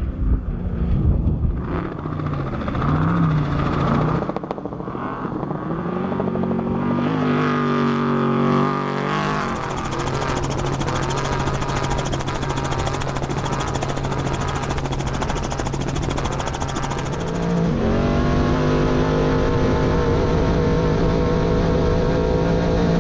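Trophy Truck engine running hard at high revs while racing: the revs climb in the first few seconds and again a little later, then hold a long, steady high-rpm pull. Near the end the tone changes to the engine and drivetrain heard from inside the cab.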